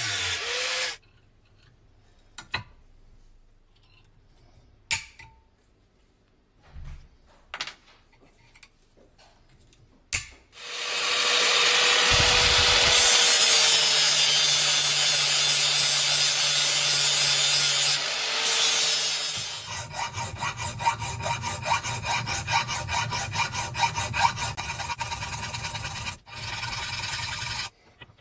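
Angle grinder with a sanding disc grinding a piece of saw-blade steel: it stops about a second in and, after a quiet stretch with a few light knocks, runs steadily for about nine seconds. Then a hand file rasps across the steel in quick, even strokes for the last eight seconds or so.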